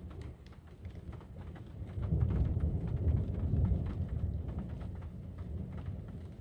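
Thunder rumbling after a lightning strike, swelling about two seconds in and then slowly dying away, with rain pattering throughout.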